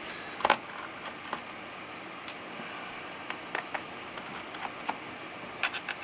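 Light, irregular clicks and taps of small MacBook Pro case screws being set down and arranged one by one on a work surface, the loudest a double click about half a second in.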